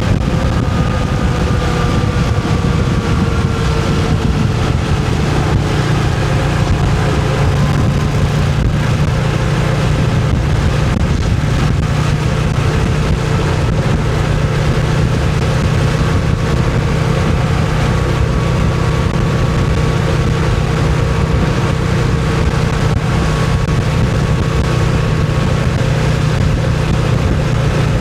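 Moto Guzzi V7 motorcycle's air-cooled transverse V-twin running at a steady pace, its note easing slightly in the first few seconds and then holding even.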